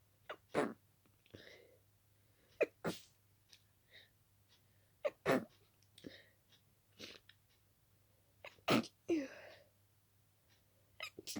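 A person's rapid sneezing fit from a badly itchy nose: sharp sneezes, mostly in quick pairs, come about every two to three seconds, with short breathy gasps in between.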